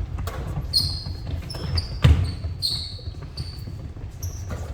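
Basketballs bouncing on a gym floor, several thuds with the loudest about two seconds in, mixed with short high-pitched squeaks of sneakers on the court.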